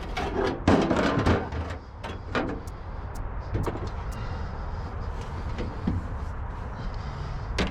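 Knocks, scrapes and clicks of a CRT television's deflection yoke being worked apart by hand to get at its thick copper wire, loudest about a second in, over a low steady rumble.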